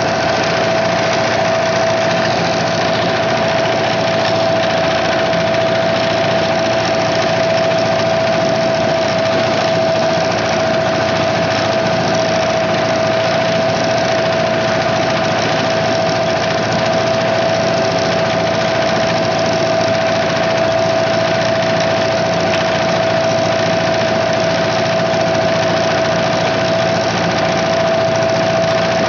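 A fishing boat's engine running steadily while the boat is underway, with a constant whine above the engine's drone.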